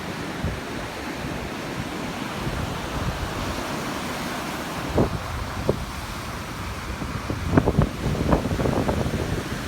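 Ocean surf washing on a sandy beach, with wind buffeting the microphone; the wind gusts hit harder about halfway through and again near the end.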